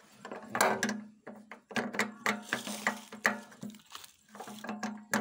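Irregular metallic clinks and knocks of tools and parts being handled during work on a diesel generator engine, over a steady low hum.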